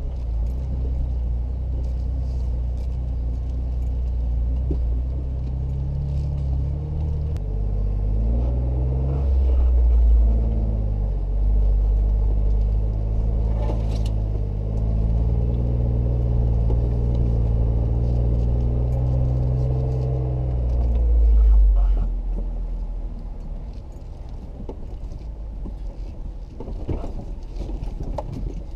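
Jeep Wrangler JK's V6 engine working up a dirt trail at low speed. Its pitch steps up and down several times with the throttle, then it eases off and gets quieter about three-quarters of the way through.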